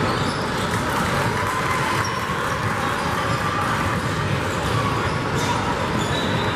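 Basketball bouncing on a hardwood gym floor over steady, echoing hall noise.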